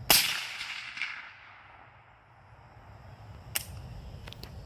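A 300 AAC Blackout rifle fires a single subsonic round: one sharp, loud report that fades out over about a second, with a fainter crack about a second after it. A few light clicks follow near the end.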